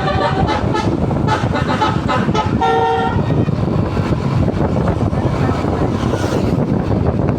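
A bus's telolet 'basuri' musical air horn playing a quick tune of changing notes, which stops about three seconds in. A steady low vehicle rumble with wind on the microphone runs underneath and continues after the horn stops.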